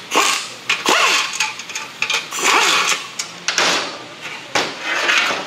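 Matco impact wrench running in several short bursts, its pitch rising and falling, as it spins out the bolts of an automatic transmission's oil pan.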